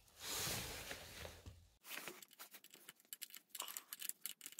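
Hand tools on a pit bike's swingarm chain adjuster bolt: a soft rustling of handling, then a run of quick, irregular light metallic clicks as the adjuster is worked.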